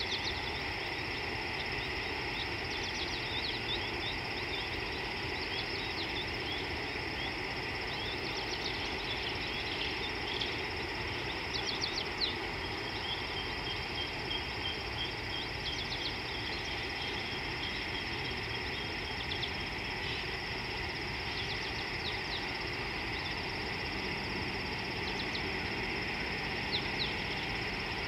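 Steady outdoor wildlife chorus at a watering hole: a continuous high hum of calling creatures, with many short high chirps scattered through it and a brief cluster of them about halfway.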